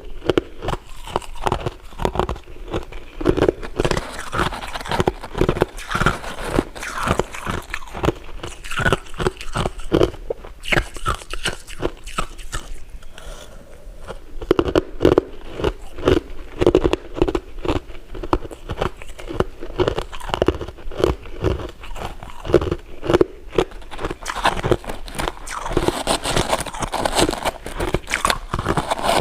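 Close-miked eating: repeated crunching bites and chewing, with a softer pause a little before the middle.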